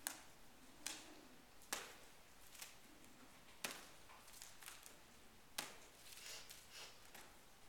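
Sharp taps from a horse-training stick, coming roughly once a second in an uneven rhythm, some much louder than others.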